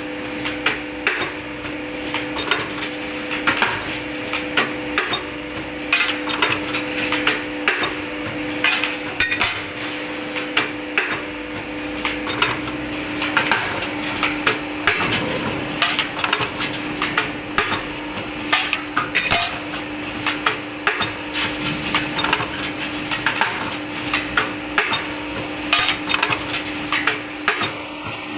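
CNC metal punching machine at work: repeated sharp metal-on-metal punch strikes, roughly one or two a second, over the machine's steady motor hum.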